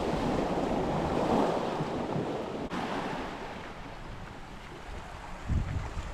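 Sea waves washing onto a shore, with wind buffeting the microphone; the wash is strongest in the first couple of seconds and then eases off.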